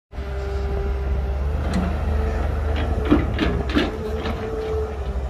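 Heavy diesel machinery running with a steady low rumble and hum, and a quick run of knocks and clanks in the middle, the loudest about three seconds in.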